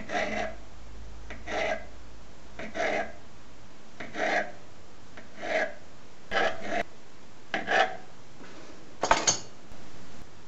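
Kitchen knife cutting through a rolled-up sheet of fresh noodle dough against the countertop: eight short scraping cuts at a steady pace, the last one the sharpest and loudest.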